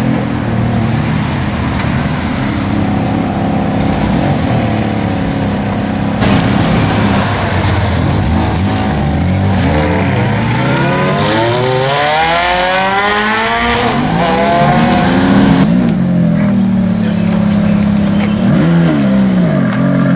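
Ferrari F430's V8 engine running at low revs, then revving hard as the car accelerates away, its pitch climbing steeply for several seconds before falling back. Near the end another F430 idles and rolls at low revs.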